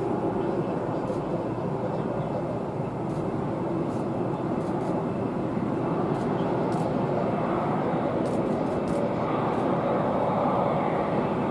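Boeing 787-8 airliner's jet engines at taxi power, a steady rushing drone that grows a little louder in the second half as the aircraft turns toward the listener.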